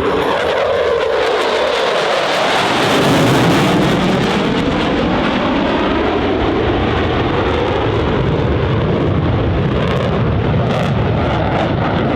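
EA-18G Growler's twin General Electric F414 jet engines, loud as the jet makes a high-speed pass, peaking about three seconds in, with the pitch sliding down and back up as it goes by and turns away.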